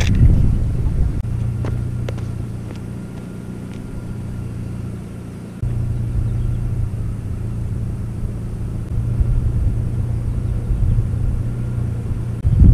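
Steady low rumble of wind buffeting a small camera's microphone on an exposed bridge. It drops back and then steps up abruptly about five and a half seconds in.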